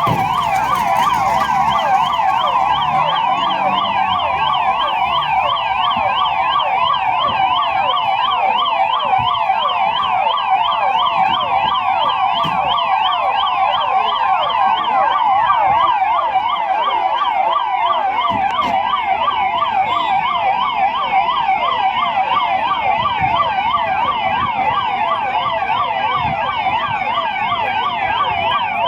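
Ambulance siren sounding continuously in a fast warble, its pitch rising and falling several times a second.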